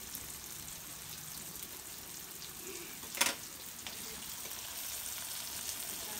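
Chopped onions and tomatoes sizzling steadily in oil in a kadhai, with one sharp click about three seconds in.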